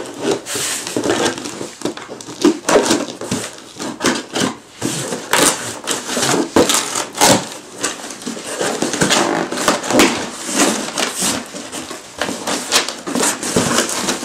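Cardboard shipping box being cut open and its flaps pulled back, then brown packing paper rustling and crinkling as it is pulled about, in a run of irregular scrapes, crackles and sharp clicks.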